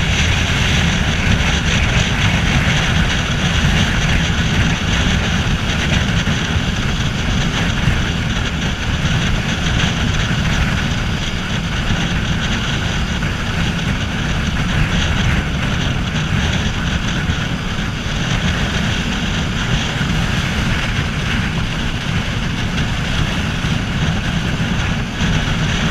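Yamaha Fazer 250's single-cylinder engine running at steady cruising speed, under heavy wind rush on the microphone.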